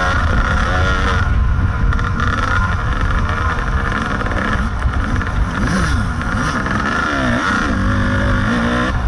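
Kawasaki KDX 220 two-stroke dirt bike engine riding a trail, its pitch rising and falling again and again with throttle and gear changes, over a heavy low rumble.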